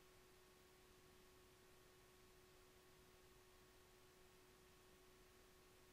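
Near silence: faint steady hiss with a thin constant hum-like tone.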